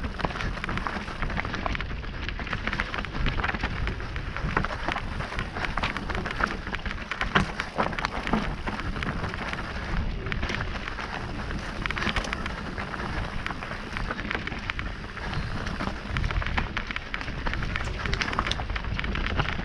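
Mountain bike riding down a rough, rocky trail: tyres crunching over stones, with frequent irregular knocks and rattles from the bike. A steady low rumble of wind on the action camera's microphone runs under it.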